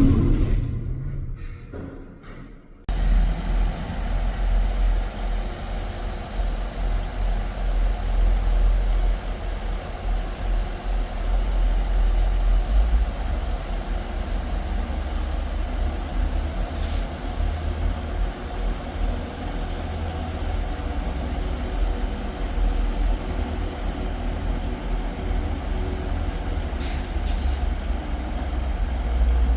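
Idling diesel engine of a Class 158 diesel multiple unit: a steady, deep rumble. There are brief hisses of air about halfway through and near the end. A louder sound at the very start fades away over two seconds.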